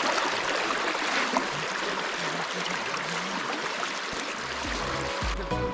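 Shallow stream rushing over a rocky bed: a steady, even rush of flowing water. Music comes in right at the end.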